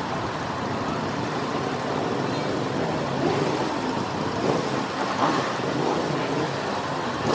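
Steady rush of wind and engine noise from a Kawasaki motorcycle under way, heard from a camera mounted on the bike.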